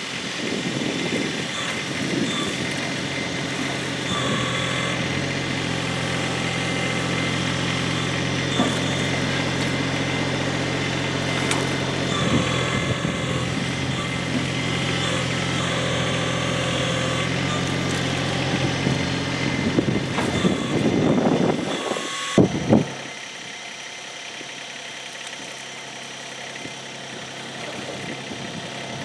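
LS MT125 compact diesel tractor running steadily while it works its front-loader forks. About three quarters of the way through there are two sharp knocks, and then the sound suddenly drops to a quieter, more distant engine idle.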